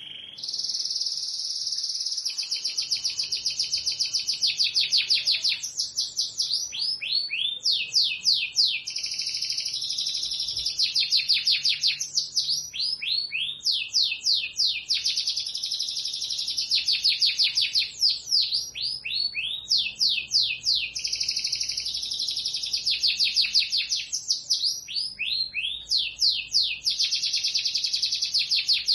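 Canary singing a long unbroken song of fast rolling trills and quick runs of downward-sweeping notes, switching phrases every couple of seconds.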